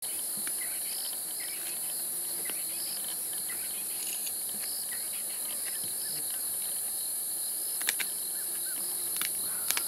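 Steady high-pitched chorus of crickets and other night insects, with two pairs of sharp cracks near the end from a leopard crunching the bones of a young impala.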